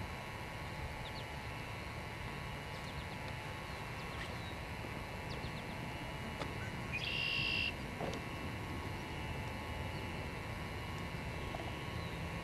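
Field ambience: a steady low rumble with faint high ticks scattered through, and one short buzzy high call about seven seconds in.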